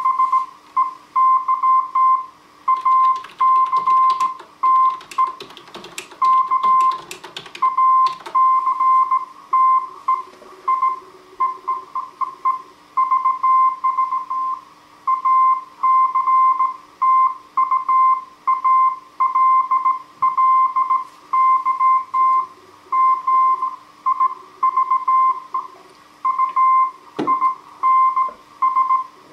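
Slow Morse code (CW) on a Heathkit HW-101 transceiver: a single steady beep keyed on and off in dots and dashes. Crackling static comes through about three to eight seconds in, and there is one sharp click near the end.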